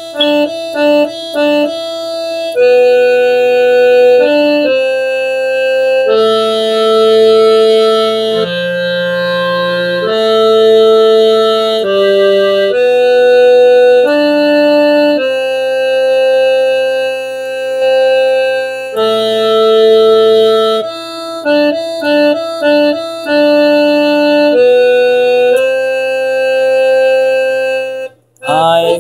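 An electronic organ played haltingly by a first-time player: uneven runs of short notes alternating with longer held notes and chords, the playing breaking off just before the end.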